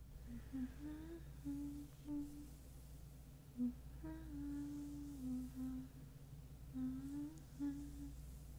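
A woman humming a tune to lull someone to sleep, moving between held notes in a low voice.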